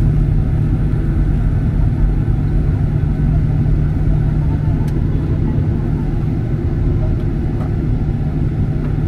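Boeing 737-800 cabin noise while taxiing: the CFM56 engines running at low power, heard inside the cabin over the wing as a loud, steady rumble with a low drone.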